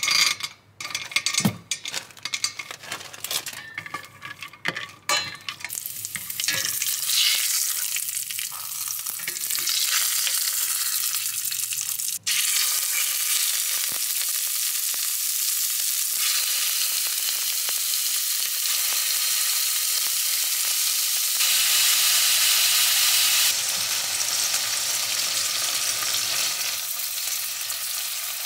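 Almonds and chicken fillets frying in oil in a stainless steel pot. A run of sharp clicks as the almonds drop into the hot oil at the start gives way to a steady sizzle that grows louder after a few seconds.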